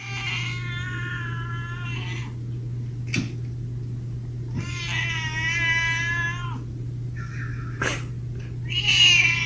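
A cat yowling in long, drawn-out calls: two of about two seconds each, then shorter, louder ones near the end, over a steady low hum.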